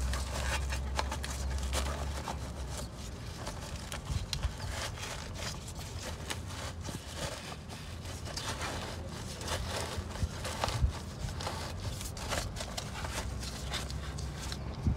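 Gloved hands working a woven fabric turbo blanket onto a turbocharger: irregular rustling and scraping of the fabric against metal, with scattered clicks and knocks. A low hum sounds for the first two seconds.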